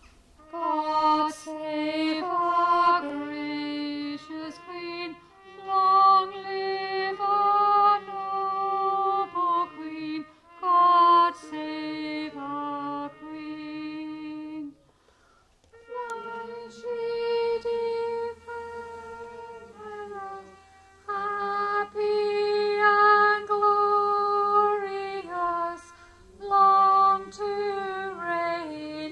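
A slow song sung over instrumental accompaniment, in phrases of held notes with short breaks between them.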